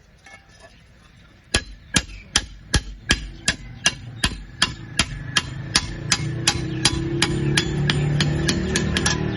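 Hammer striking metal in a steady, even rhythm of about two to three blows a second, starting about a second and a half in. A low hum grows louder underneath in the second half.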